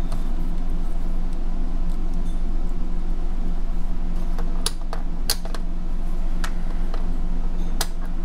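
A steady low electrical hum, with a handful of sharp clicks about halfway through and near the end as a capacitor is handled and tested on an LCR meter.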